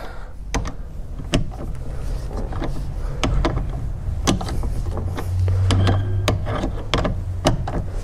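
Scattered clicks and knocks of a long-handled ratchet straining on a tight Torx 50 seat-belt anchor bolt that is held by blue thread locker, with a low steady hum for about a second a little past halfway.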